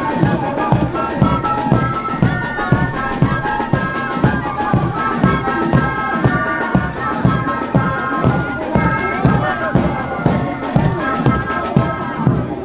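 Band music: wind instruments playing a melody in long held notes over a steady, even drum beat.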